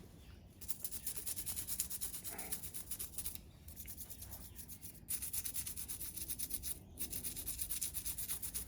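A toothbrush scrubbing a Tikka T3 rifle's firing pin in bore solvent, with rapid back-and-forth strokes that work the cleaner into a foam. There are short pauses about three and a half, five and seven seconds in.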